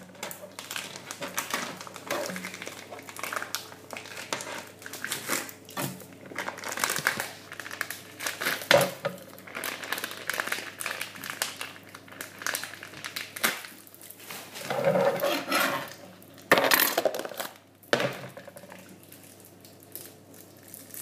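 Kitchen food-preparation handling: plastic packet wrappers crinkling while plates and cutlery clink and knock irregularly, with a few louder clatters.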